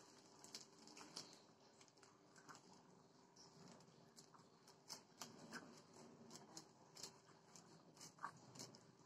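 Faint crinkling and rustling of a plastic parcel bag being handled and untied, a scatter of soft, irregular crackles over a quiet room hum.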